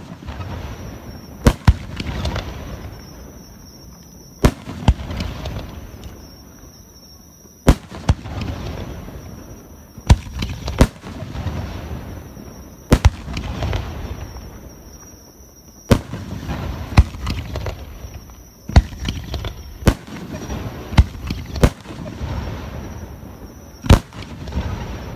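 Aerial fireworks shells bursting overhead, about fifteen sharp bangs spaced one to three seconds apart. Each bang is followed by a low rumble that dies away.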